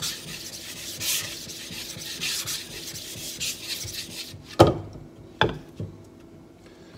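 A coarse block rubbed back and forth across the wet face of a 1000-grit Chosera water stone, a gritty scraping in repeated strokes. About halfway through the rubbing stops with two sharp knocks a little under a second apart and a smaller one just after.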